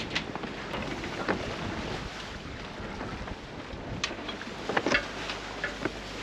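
Wind buffeting the microphone over the rush of water along a sailing catamaran's hulls, with scattered sharp clicks and knocks from lines and deck hardware as the crew handle the sail, the busiest about four to five seconds in.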